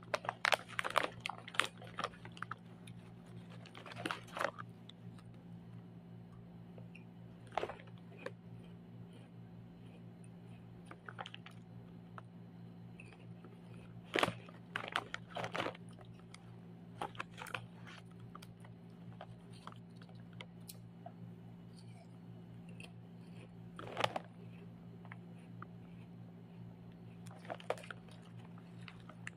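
A plastic snack bag crinkling and rustling in short, irregular bursts as hands open it and reach in among puffed crackers. A steady low hum runs underneath.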